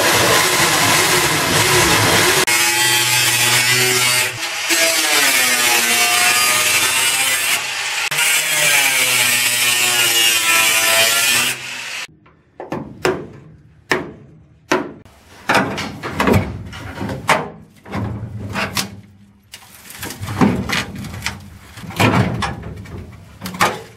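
Corded electric drill boring through the sheet-steel floor pan to drill out spot welds, its motor pitch sagging and recovering as the bit bites. After about twelve seconds it stops, and a run of sharp metallic knocks and clanks follows as the old floor pan is worked loose.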